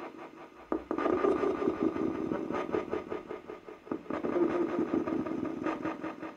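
Spirit communication device (ghost-hunting spirit box) playing choppy electronic noise through its speaker: steady tones broken up by rapid stutters and crackles, quieter for about the first second.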